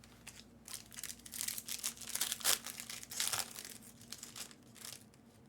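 Trading card pack wrapper being torn open and crinkled by hand: a run of crackly tearing and crumpling, loudest in the middle.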